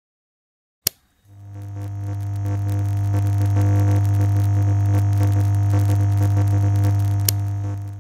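Sound effect of a lamp switching on: a sharp click about a second in, then a low, steady electrical hum that swells up and holds. A second click comes near the end, and the hum then cuts off.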